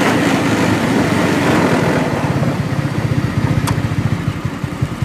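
An engine running steadily with a rapid low throb, and a short sharp click a little after halfway.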